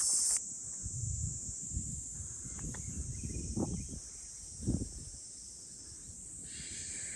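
Steady high chirring of insects in the woods, louder for the first half second, with low thuds and rustling close to the microphone during the first few seconds, including two sharper knocks in the middle.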